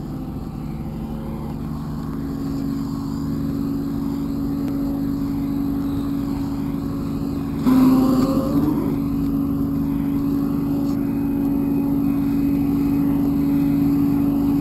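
A vehicle engine running steadily at a constant pitch, slowly getting louder, with a short louder surge about eight seconds in.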